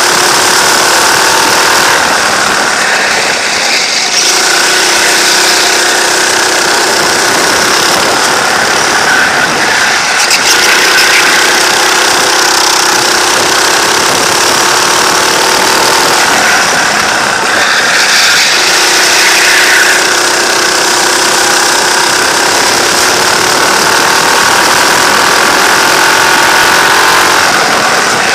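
Go-kart engine heard from on board the kart during a race lap, running hard. Its note climbs steadily along each straight and dips briefly four times as the kart slows for corners.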